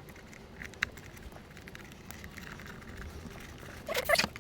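Faint rustling and small clicks of hands fitting a gasket onto a gasoline air heater. A short voice-like sound comes near the end.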